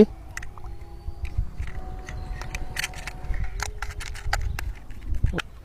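Scattered small clicks and taps of a battery being fitted into a toy's plastic battery compartment.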